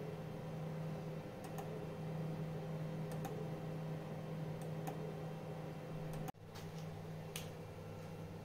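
Computer mouse clicks, mostly in quick pairs about every second and a half, as the Z-axis jog buttons of a CNC control program are clicked, over a steady low hum. About six seconds in the background hum breaks off and changes, and another sharp click follows.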